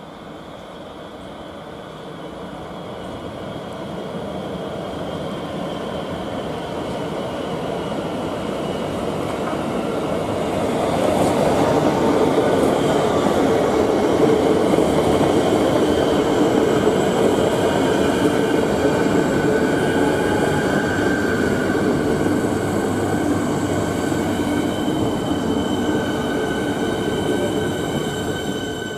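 Train approaching and running past, its rumble building over about ten seconds, staying loud, then easing near the end. A steady high-pitched whine sits above the rumble.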